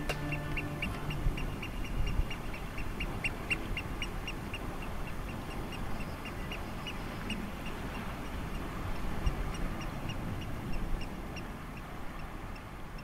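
Eurasian oystercatcher calling: a long, even series of short high piping notes, a few a second, slowing slightly towards the end, over a steady background hiss.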